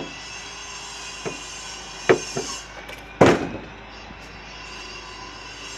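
A few sharp knocks or thuds: a light one about a second in, then louder ones about two seconds in and three seconds in, over a faint steady hum.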